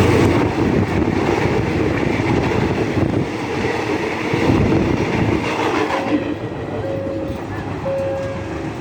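Passenger train rolling past at low speed, its carriages clattering and rumbling over the rails. From about six seconds in, a short steady tone sounds again and again, roughly once a second.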